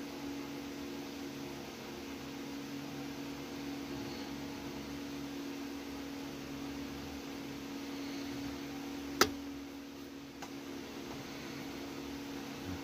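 Steady low hum of a small running motor or fan. A single sharp click sounds about nine seconds in, with a fainter one a second later.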